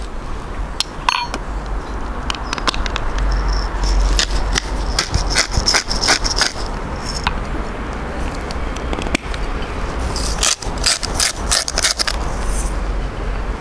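Hand-twisted pepper and salt grinders cracking seasoning over a bowl of minced beef: a run of rapid gritty clicks about four seconds in, and another about ten seconds in. About a second in there is a light clink, a teaspoon against the glass bowl.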